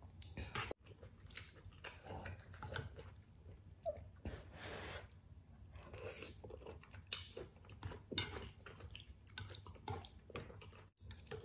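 Eating sounds from a bowl of spicy seafood ramen: wet chewing and mouth smacks throughout, with a longer slurp of noodles a little before the middle.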